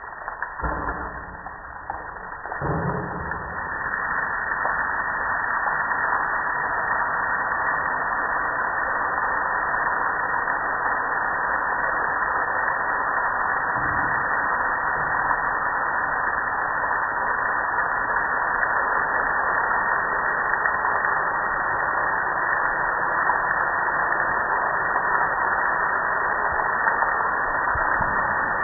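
Water spraying onto a soapy gas grill and splashing off it, a steady hiss that builds up over the first three seconds and then holds.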